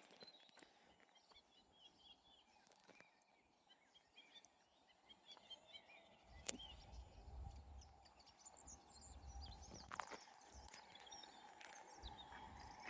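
Faint birdsong: short chirps scattered through very quiet open-air background, with a low noise growing louder near the end.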